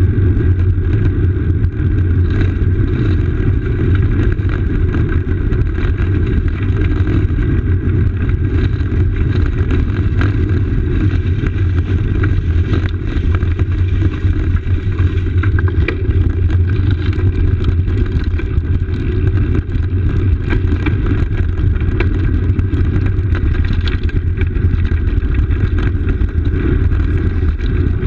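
Steady low rumble of wind and road vibration through a camera clamped to a road bike's handlebars, rolling over stone paving, with many small knocks from the bumps.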